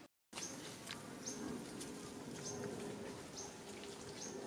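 Woodland ambience: a short, high chirp with a falling tail repeating about once a second, over a steady low hum. The sound drops out to silence for a moment at the very start.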